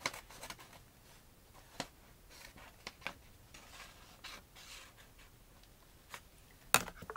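Small scissors snipping paper, with the paper rustling as it is handled: scattered short snips and soft crinkles, and one sharper click near the end.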